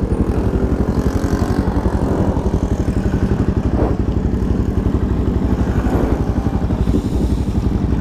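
Honda CBR300R's single-cylinder engine idling, a steady, fast, even pulse of exhaust beats.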